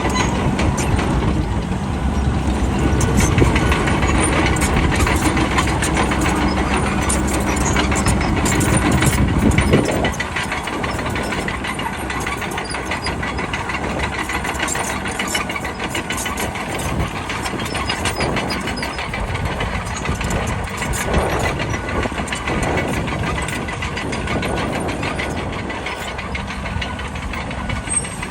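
Bulldozer's diesel engine running hard for about the first ten seconds, then dropping suddenly to a lower, quieter note, with a steady rattling clatter throughout.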